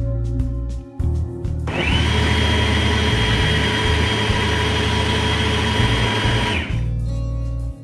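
Cecotec Grand Katana 18 Total Destroy B blender's 1800-watt motor and blades running steadily through a jug of liquid, starting about two seconds in and stopping about a second before the end, over background music.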